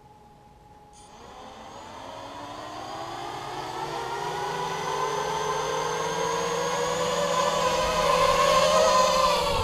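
Four Turnigy Multistar 1704 1900Kv brushless outrunner motors with propellers on a 250-size FPV racing quadcopter starting about a second in and spooling up. Their whine rises steadily in pitch and grows louder as the throttle is raised, until the quad lifts off near the end.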